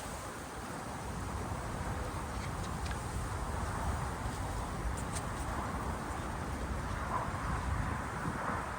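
Strong winter wind buffeting the microphone with a steady low rumble, over a constant outdoor hiss.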